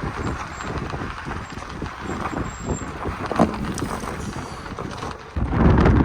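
Vehicle on the move: uneven road and engine rumble with scattered knocks, jumping suddenly to a much louder low rumble near the end.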